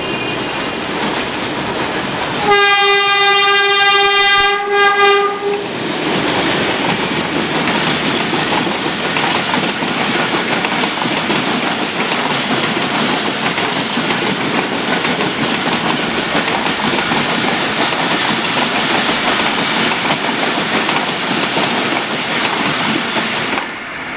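PHA-20 diesel locomotive sounding its horn as it approaches: one steady tone about 2.5 s in, lasting about three seconds. Then comes the steady clatter of the passenger coaches' wheels on the rails as the train runs past, dropping away near the end.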